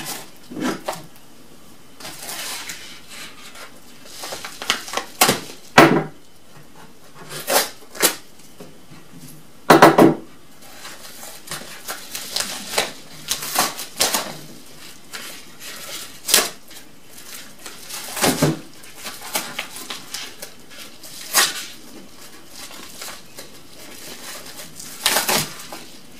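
Yellow padded paper mailer envelope being torn open and crinkled by hand: irregular bursts of tearing and rustling paper, a second or two apart, as the tough envelope is worked open.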